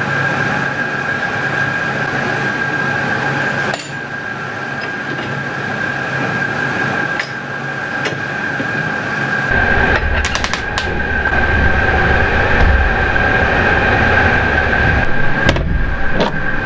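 A steady mechanical drone with a constant high whine, deepening into a heavier rumble about halfway through, with a few sharp metallic clicks and knocks in the second half.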